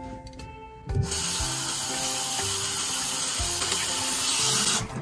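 Water running from a bathroom sink tap while a T-shirt is rubbed and rinsed under it by hand. The water comes on about a second in, runs steadily, and stops abruptly just before the end.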